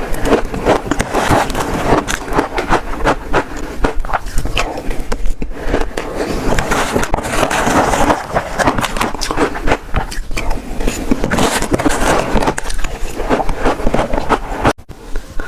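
Shaved ice being bitten and chewed close to the microphone: a dense, continuous crunching and crackling, with a brief break near the end.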